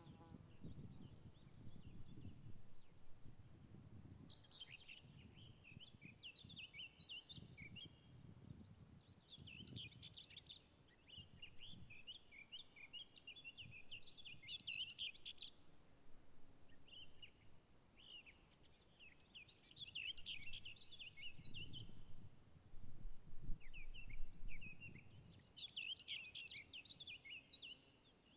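Crickets trilling steadily on one high note, with clusters of quick high chirps every few seconds. Low gusts of wind buffet the microphone at times.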